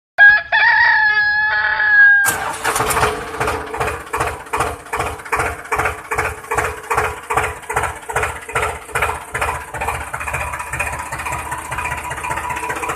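An engine starts about two seconds in and runs at an even, chugging idle of about three beats a second. It is preceded by a short high-pitched tone.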